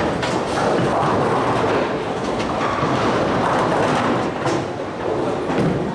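Bowling balls rolling down the lanes with a steady rumble, and pins clattering now and then over the din of the alley.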